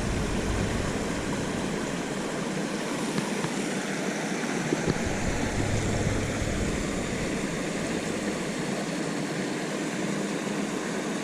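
Steady rush of water pouring over a small creek spillway, with a low rumble underneath.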